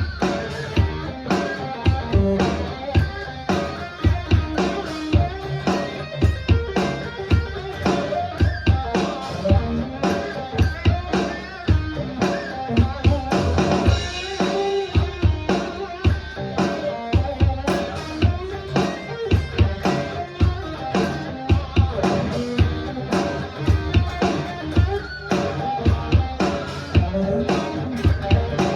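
Music played on guitar with a drum kit keeping a steady beat.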